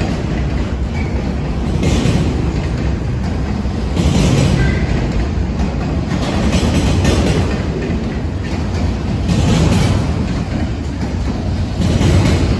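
Double-stack intermodal freight train's well cars rolling past: a steady loud rumble of steel wheels on rail, swelling into a burst of clatter every couple of seconds as the car trucks pass.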